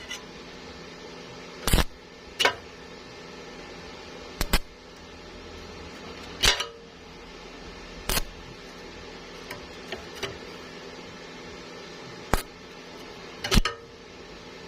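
About seven sharp knocks or taps at irregular intervals, each ringing briefly, over a steady low machine hum.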